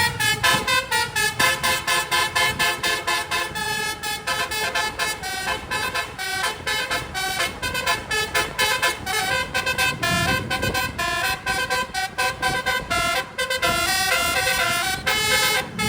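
Indonesian tour bus 'telolet' horn, a multi-trumpet air horn, playing a fast run of short notes. Several trumpets sound together and the pitch steps up and down like a tune.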